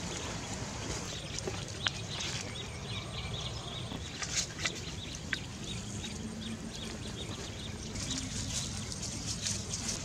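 Outdoor ambience: a steady hiss of background noise with a few scattered sharp clicks and crackles.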